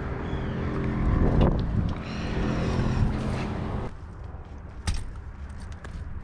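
A motor vehicle's engine running, loudest about a second in, then quieter from about four seconds.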